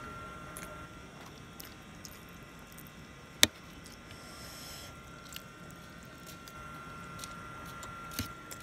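A person eating noodles close to the microphone: soft chewing and small clicks of a fork against a metal plate, with one sharp click a little over three seconds in.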